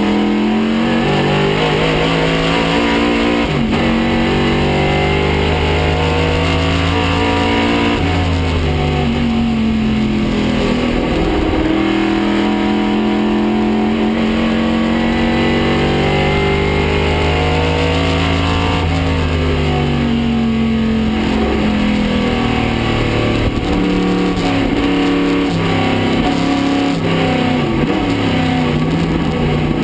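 Racing Chevrolet 302 cubic-inch V8 of a 1969 Camaro Trans-Am car, heard loud from inside the cockpit, revving up through the gears and falling in pitch on braking and downshifts, with a long stretch held at high revs in the middle.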